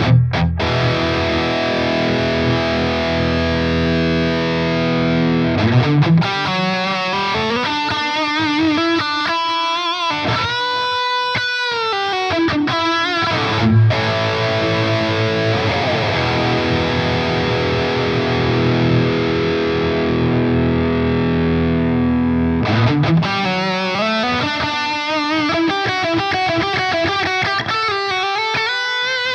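Distorted electric lead guitar played through an Axe-Fx II modelling a Mesa/Boogie Mark V amp, with stereo tape delay. It plays sustained notes, fast rising runs and a long held note with vibrato.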